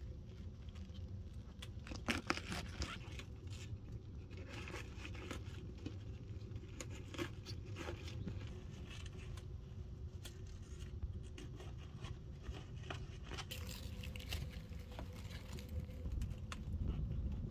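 Kitchen knife cutting around the core of a raw cabbage head on a wooden cutting board: irregular crunching cuts and scrapes, with a sharp cluster about two seconds in. A steady low rumble runs underneath.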